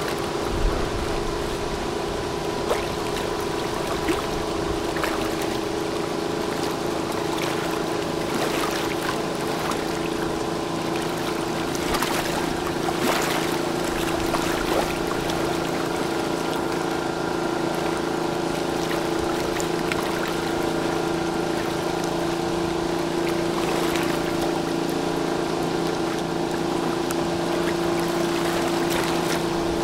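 Ship engines make a steady, many-toned drone over the wash of water, and a deeper hum joins about six seconds in. There are a few faint knocks.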